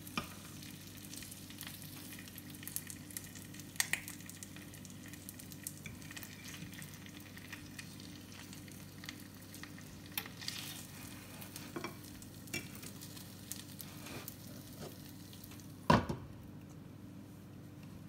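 Beef rib slices and shredded cheese sizzling in a nonstick frying pan, with a metal fork clicking against the pan now and then as the meat is moved. About sixteen seconds in, a glass pan lid is set on with a sharp clack, and the sizzle becomes muffled.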